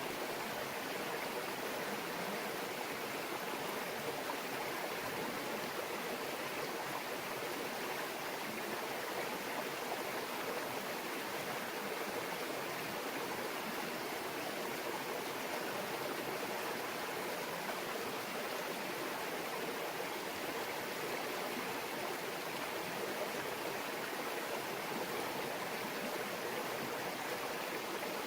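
A shallow mountain brook babbling steadily over rocks.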